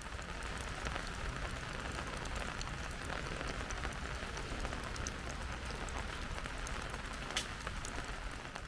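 Steady rain, with the patter of many small drops.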